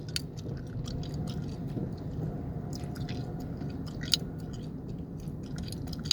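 Gum chewing close to the microphone, wet smacks and sharp clicks at an uneven pace, the loudest about four seconds in and again near the end, over the steady low rumble of an idling car's cabin.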